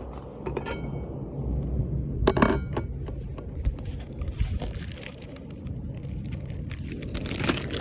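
Camp-cooking handling sounds: a few light clicks, a sharp clink with a brief ring about two seconds in, then rustling, over a steady low rumble.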